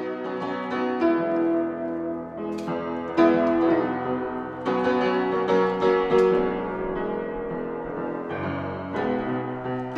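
Upright piano being played: a slow run of sustained chords, a new chord struck every second or two.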